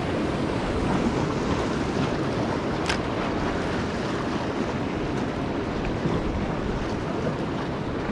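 Sea surf washing against shoreline rocks, a steady rush of water, with wind buffeting the microphone. A single sharp click about three seconds in.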